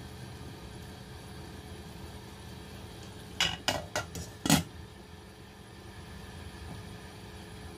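Glass pot lid set onto a stainless-steel soup pot: a quick run of four or five clinks of glass on metal over about a second, the last the loudest, over a steady low hum.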